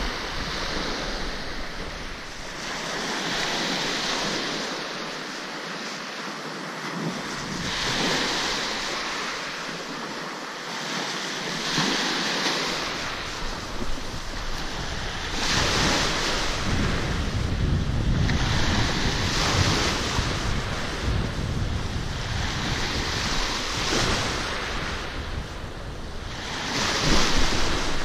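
Small waves breaking and washing up a pebble-and-shell beach, the surf swelling every few seconds. Wind rumbles on the microphone from about halfway, and the loudest wave comes near the end.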